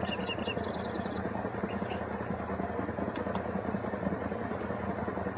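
An engine idling with a steady low hum under a hiss. In the first second and a half a quick run of short, high chirps sounds over it, and two faint clicks come a little past three seconds in.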